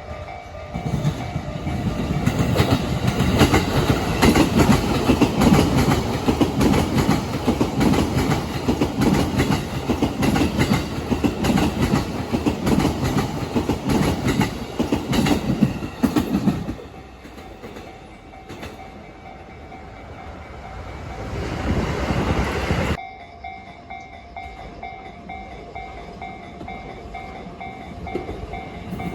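A freight train passing over rail joints, its wheels hammering out a loud, rapid clatter for about sixteen seconds before it falls away; the sound swells again and cuts off abruptly about three-quarters of the way through. Under it a level-crossing warning bell rings steadily.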